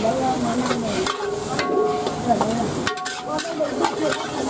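Metal ladle stirring and scraping fried rice and diced vegetables around a steel wok, with scattered clatters, while the food sizzles. Voices talk over it.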